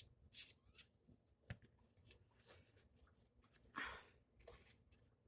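Faint rustling and light clicks of hands handling small parts, with two slightly louder rustles about four seconds in.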